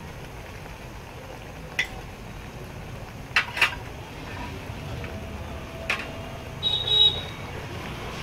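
A few sharp metallic clinks and knocks of kitchen utensils against metal cookware, spaced out over several seconds, with a short cluster near the end that rings briefly.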